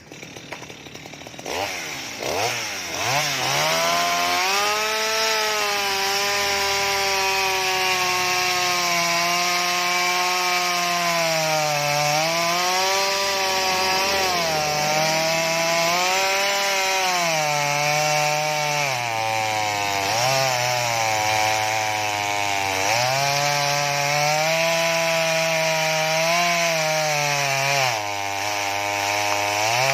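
Small two-stroke Stihl MS 230 chainsaw revved up to full throttle and cutting into wood. The engine's pitch sags and recovers again and again as the chain bogs under load in the cut.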